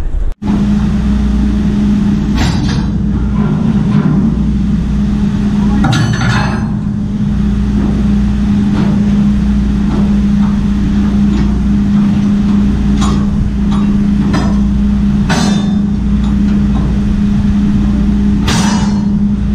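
Steady, loud machinery hum on a container ship's deck, with a clank or rattle of steel container lashing bars several times.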